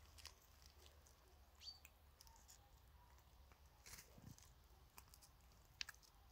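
Faint, scattered clicks and taps of chickens pecking at food, with a soft chicken call or two; the loudest is a single sharp click near the end.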